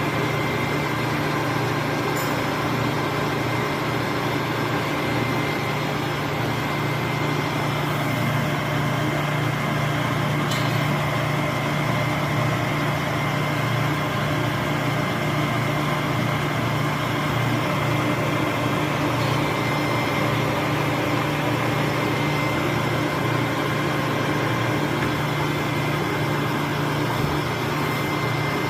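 Famot TUM-35 lathe running: a steady mechanical hum from its motor and gearbox, with a faint high whine over it.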